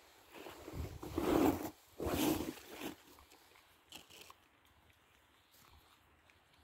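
Black bear cub eating a coconut macaroon: two loud bursts of chewing and mouth noise about a second and two seconds in, then a few faint smacks.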